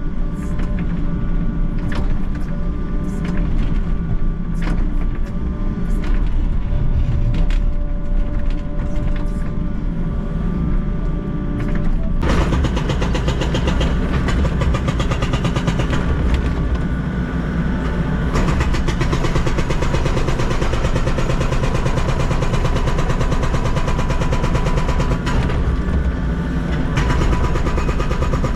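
Volvo excavator running under load while its bucket digs a trench, engine and hydraulics working, with sharp clicks and knocks in the first half. About twelve seconds in the sound becomes abruptly fuller and brighter and holds steady from there.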